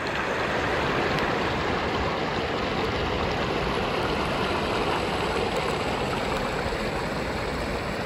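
Water rushing steadily as it spills in small cascades over limestone ledges between natural pools.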